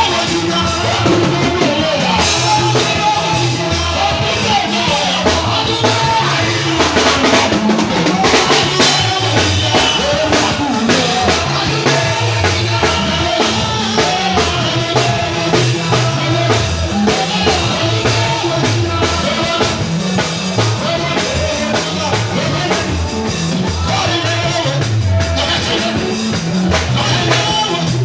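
Gospel-style worship music with a drum kit playing a steady beat under pitched instruments or voices.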